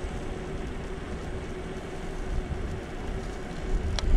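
Hover-1 electric scooter ridden at speed on pavement: a steady low rumble of tyres and passing air, with a faint steady whine, and a sharp click near the end.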